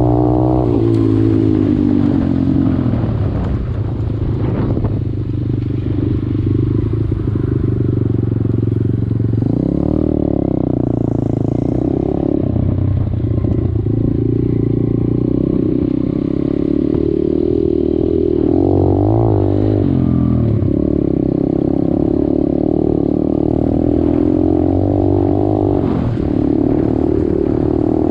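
125cc dirt bike engine running while ridden, its pitch falling and rising with the throttle: it drops in the first couple of seconds, climbs again about ten seconds in, and wavers around twenty seconds.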